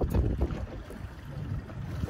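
Wind buffeting the microphone on a small boat at sea: an irregular, gusting low rumble.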